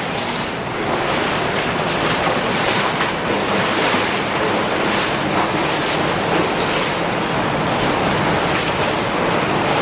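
Underground cave stream rushing steadily, a continuous loud wash of water.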